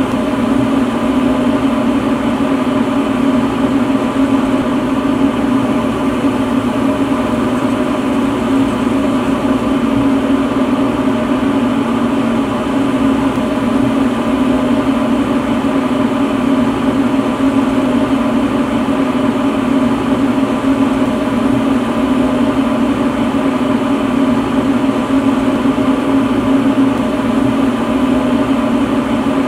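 A lampworking bench torch burning with a steady, unchanging rush of gas flame.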